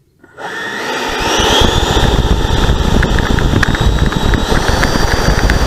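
Electric ducted fans of a Freewing MiG-29 RC model jet spooling up from silence. A whine rises about a second in and settles into a steady high tone at high power, over a loud low rumble of wind and the tarmac heard on the onboard camera during the takeoff roll.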